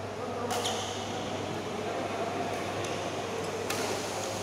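Badminton racket strings hitting a shuttlecock twice, a sharp smack about half a second in and another about three seconds later, over a steady hum in the hall.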